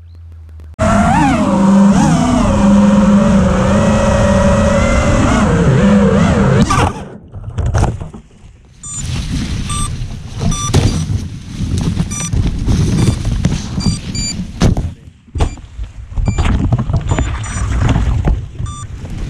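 Crashed FPV quadcopter's Emax RS2206 2300kV brushless motors whining with a slightly wavering pitch for about six seconds, its props caught in foliage. Then come irregular, choppy bursts as the three-blade propellers spin up and thrash against bamboo and grass leaves.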